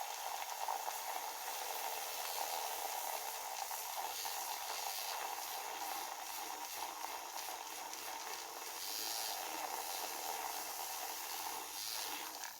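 Small handheld electric mixer whirring steadily as it whips coffee with melted butter and collagen powder into a foam.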